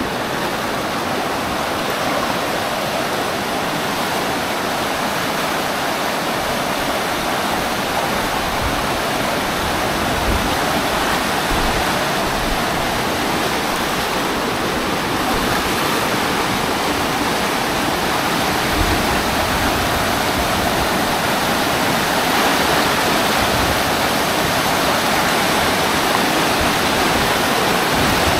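Floodwater rushing fast down a street, churning and splashing white over a concrete slab along a house wall: a steady, unbroken rush of water.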